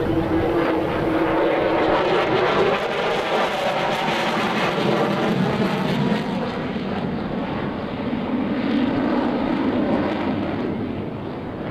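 F-16 Fighting Falcon fighter jet's engine noise during a demonstration flight, a steady dense roar that softens and loses its high end from about six seconds in as the jet draws away.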